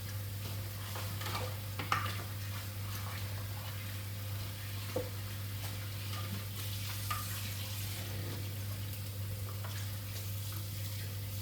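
Kitchen cooking sounds: a faint sizzle and hiss from a pan, with a few light clinks of a utensil against the pot over a steady low hum.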